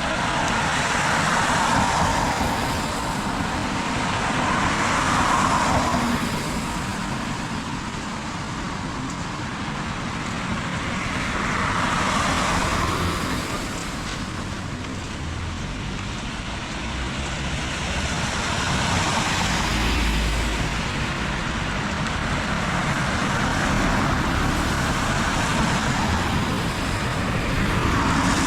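Heavy rain falling steadily, a continuous rushing hiss that swells and fades several times.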